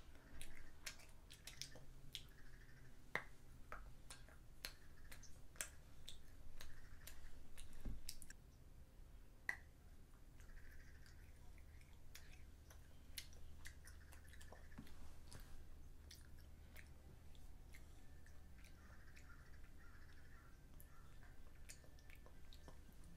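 A child quietly chewing chocolate, with many small sharp mouth clicks and smacks, thicker in the first half and sparser later.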